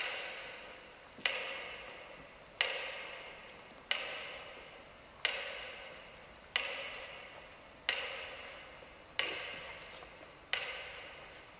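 A slow, even series of single struck percussive notes, about one every 1.3 seconds. Each sharp strike rings out and dies away in a long reverberant tail before the next.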